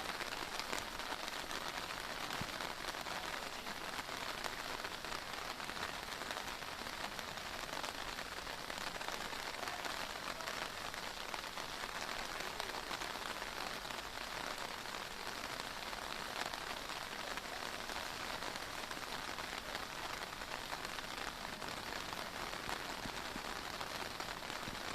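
Heavy downpour of rain falling steadily on surfaces: a dense, even hiss flecked with fine ticks of individual drops.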